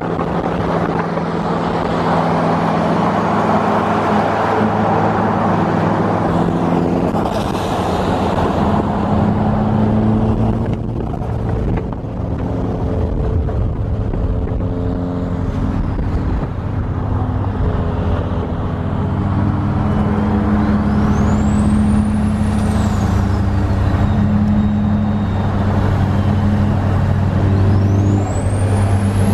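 Car engine running while driving, its pitch stepping up and down as it changes speed, with a high whistle that rises and falls about two-thirds of the way through and climbs again near the end.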